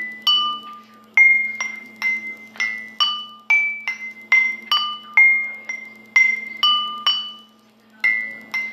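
Glass tumblers filled with different amounts of water, struck one after another to ring out clear notes, each note fading quickly. The notes fall on a few different pitches in a quick, uneven run of about two to three strikes a second, with a brief pause near the end.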